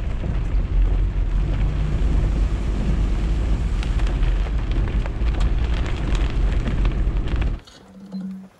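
Four-wheel drive fording a flooded creek crossing and climbing a wet dirt track, heard through a camera mounted outside the vehicle: a loud, steady rumble of engine, water and wind buffeting the microphone. It cuts off suddenly near the end.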